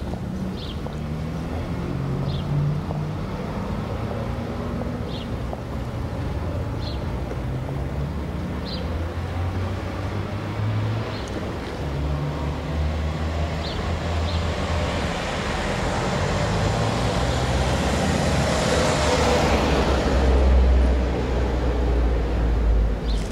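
Street traffic: a steady low rumble with short high chirps every second or two, and a car passing that builds to its loudest about twenty seconds in, then fades quickly.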